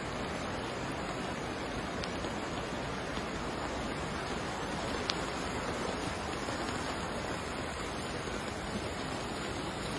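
Fast-flowing muddy floodwater rushing along a street, a steady, even sound of moving water.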